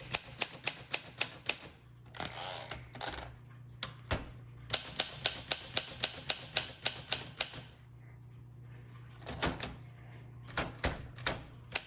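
1962 Olympia SM7 manual typewriter being typed on with shift lock engaged: crisp typebar strikes at about four to five a second, in several bursts with pauses between them. There is a short rasp around two seconds in.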